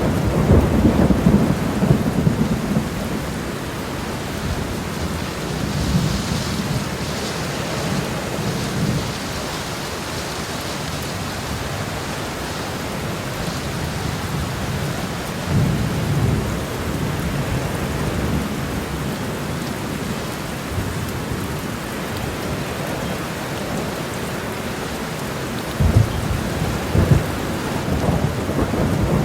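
Heavy rain pouring steadily onto a road, a dense even hiss. Short, low rumbling surges and a few sharp low knocks come now and then, strongest near the start and near the end.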